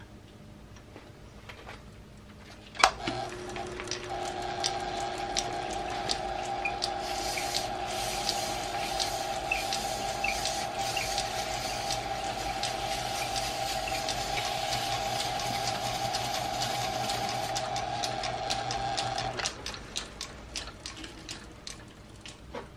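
Small metal lathe switched on with a sharp click about three seconds in and running steadily with a hum and whine, while an abrasive strip held against the spinning part adds a hiss. Near the end it is switched off and spins down with a few clicks.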